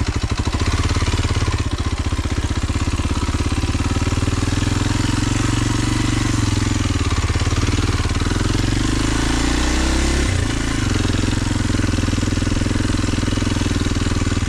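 Kawasaki KLX230 dual-sport motorcycle's single-cylinder four-stroke engine running steadily as the bike is ridden over a rough trail, its pitch rising and falling with the throttle, with a brief rise about ten seconds in that then drops back.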